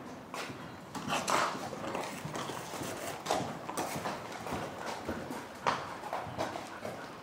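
Hoofbeats of a horse cantering on the sand footing of an indoor riding arena, a run of short impacts with a few louder strikes.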